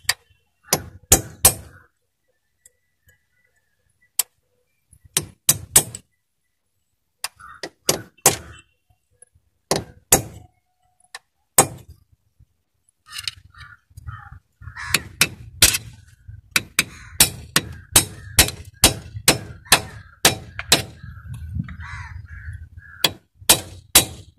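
Hammer blows on a steel chisel chipping an old cast-iron dry cylinder liner out of a four-cylinder diesel engine block. The metallic strikes come in short scattered groups at first, then settle into a steady run of about two a second from about halfway on, with a low hum under them.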